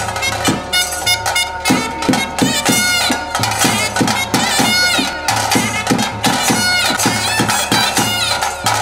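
Traditional ritual music: a wind instrument plays a wavering melody over a steady drone, with a regular drumbeat about two to three strokes a second.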